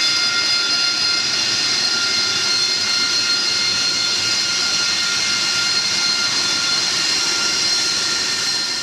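AV-8B Harrier's Rolls-Royce Pegasus turbofan running on deck as the jet taxis past: a steady jet whine with several high tones over a rushing roar of exhaust.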